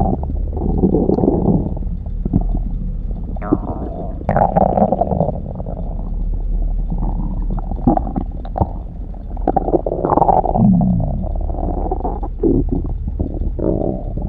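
Stomach growling and gurgling, a continuous irregular churning with many short bubbling bursts. About ten and a half seconds in there is a short pitched rumble that slides in pitch.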